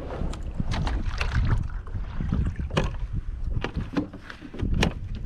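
Irregular knocks and clicks of gear being handled against a Hobie Compass kayak's plastic hull, with wind rumbling on the microphone.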